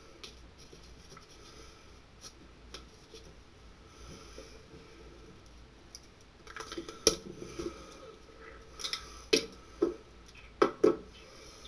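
Small hard objects handled on a desk: a paint marker and small fidget spinner parts being picked up, capped and set down. Over the faint background, a few sharp clicks and taps come in the second half, with the loudest knocks near the end.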